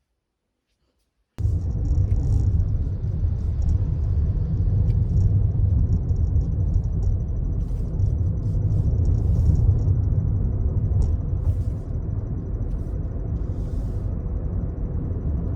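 A loud, steady low rumble that starts suddenly about a second and a half in, with a faint thin high whine and a few light clicks above it.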